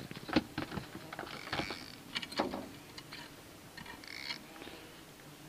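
Irregular sharp clicks and knocks with brief rustling: fishing tackle being handled in a small metal boat.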